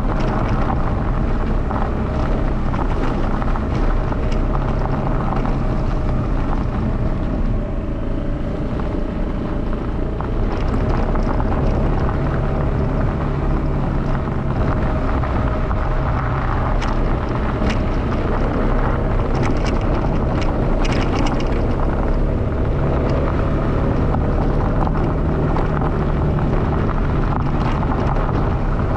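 Vehicle driving along a gravel road, heard from a camera mounted on it: steady rumble of tyres on loose gravel with wind buffeting the microphone, and scattered crackles of stones about two-thirds of the way through.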